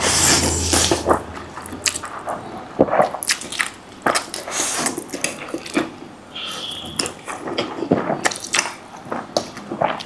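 Close-up eating sounds from a mukbang: noodles slurped and chewed, with irregular wet mouth smacks and clicks.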